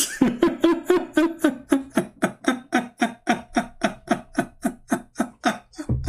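A man laughing in a long, fast, even run of "ha-ha" bursts, about five a second.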